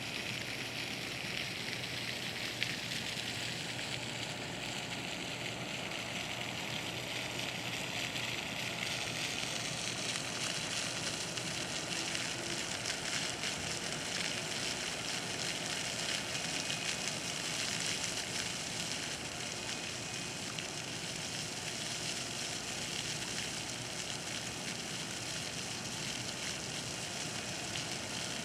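Park water fountain splashing, a steady hiss of falling water that grows a little brighter about nine seconds in.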